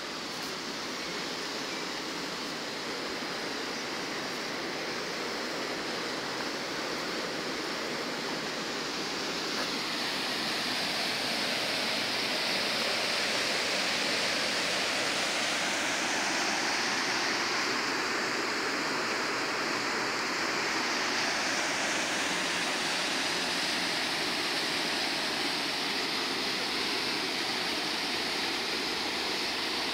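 Steady rush of river water flowing over rocks below, an even hiss that grows somewhat louder about ten seconds in.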